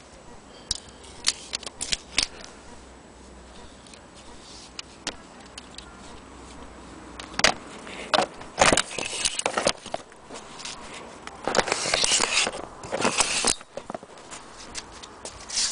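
Handling noise from camera accessories being picked up and moved about: a few small clicks in the first couple of seconds, sharper clicks about seven and a half and eight and a half seconds in, then bursts of rustling and scraping.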